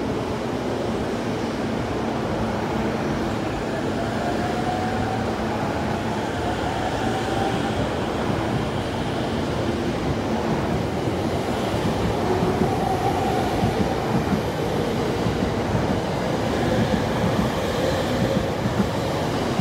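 E231 series electric commuter train departing and accelerating. Its traction motors whine, rising in pitch as it gathers speed, over a steady rolling rumble. The wheel and rail noise grows louder, with sharper clacks over the rail joints in the second half.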